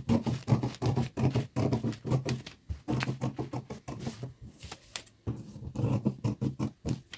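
Paper scissors cutting through a sheet of brown pattern paper: a quick run of snips with paper rustle, about three or four a second, with a brief pause about five seconds in.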